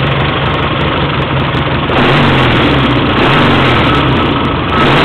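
1979 Triumph 750 Tiger's parallel-twin engine idling steadily, getting a little louder about two seconds in. It carries the tappet and valve noise the owner notes, which he links to loose valve guides letting combustion gas into the rocker box.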